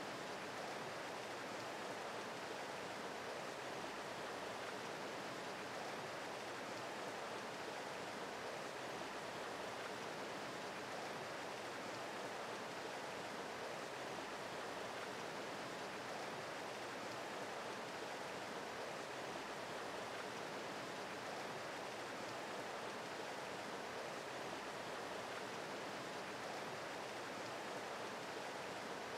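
Steady rushing of a small mountain creek flowing over rocks.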